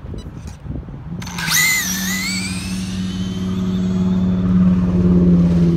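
Radio-controlled drag car's electric motor launching about a second in: a high whine that sweeps up fast and keeps climbing as the car pulls away down the track, fading with distance. A steady low hum builds underneath and is loudest near the end.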